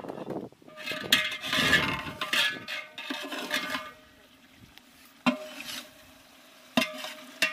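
Long metal spatula scraping and stirring chicken masala in a large aluminium cooking pot, then a few sharp clanks against the pot in the last few seconds, each leaving a brief metallic ring.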